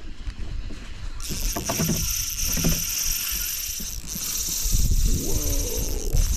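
Spinning reel's drag buzzing steadily as a hooked fish pulls line off against it. It starts about a second in, over a low rumble of wind on the microphone.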